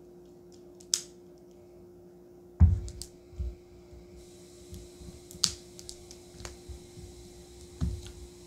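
A cardboard ice cream pint being opened and handled: a sharp click about a second in, a heavier thump a little after two and a half seconds, then scattered lighter knocks and clicks, over a faint steady hum.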